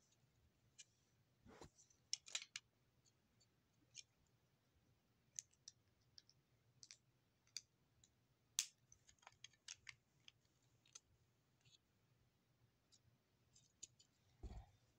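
Faint, irregular clicking of small plastic Lego pieces being handled and snapped, with a soft bump about a second and a half in and another near the end.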